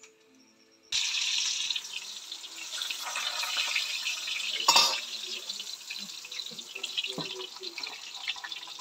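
Breadfruit slices deep-frying in hot oil in a wok, a steady sizzle that starts abruptly about a second in. A loud metal clatter comes a little before the middle, with small clinks of utensils after it.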